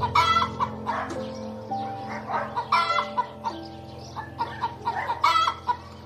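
Hen clucking: three loud short calls about two and a half seconds apart, with softer clucks between them, over background music with long held notes.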